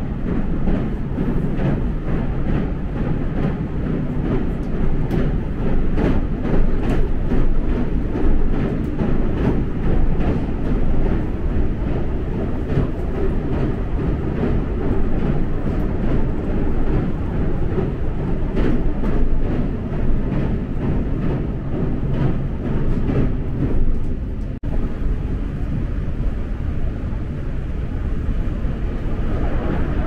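Tokaido Line local electric train running, heard from inside the carriage: a steady rumble with repeated wheel clicks over the rail joints. About 25 seconds in the sound breaks off and gives way to a smoother, steadier rumble.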